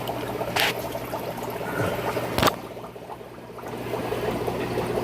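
Aquarium water trickling and bubbling over a low steady hum. There is a light click about half a second in and a sharper knock about two and a half seconds in. After the knock the water sound drops away for about a second, then comes back.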